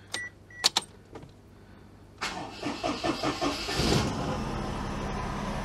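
A Daihatsu Charade's swapped-in 989cc engine being started: a few clicks, then the starter cranks for about two seconds before the engine catches and settles into a steady idle. The owner says it doesn't sound good; its air filter assembly is not seated properly and the MAP sensor is not plugged in.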